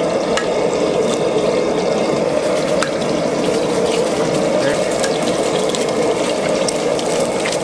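Commercial gas range burner running at full flame with a steady, loud rush under a frying pan, with scattered crackles as eggs fry in the oil.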